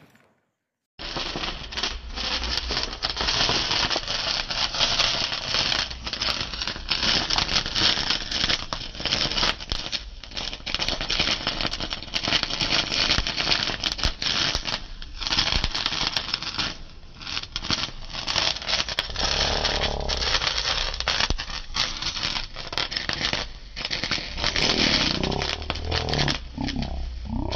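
Hand-held wire sparkler burning, a dense, steady crackle and fizz of spitting sparks that starts about a second in.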